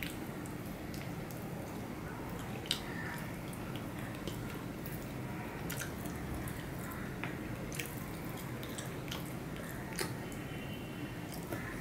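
Wet chewing and mouth sounds of a person eating rice and curry with his fingers, with scattered sharp smacking clicks, and the squish of rice being mixed by hand on a steel plate. A steady low background noise runs underneath.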